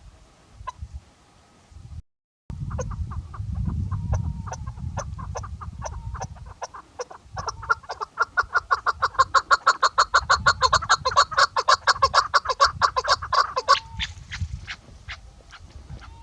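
Chukar partridge calling: a series of short clucking notes that speeds up into a fast, loud chatter of about five or six notes a second, then stops abruptly and trails off in a few spaced notes. A low rumble runs underneath.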